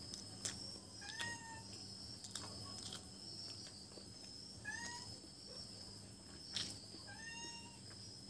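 Three short meow-like animal calls, each bending in pitch, about a second in, near five seconds and about seven seconds in. Under them, a steady high chirring of insects and a few sharp clicks.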